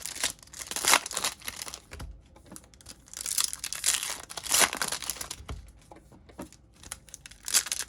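Foil trading-card pack wrappers being torn open and crinkled, in a series of irregular rustling bursts with short pauses between them.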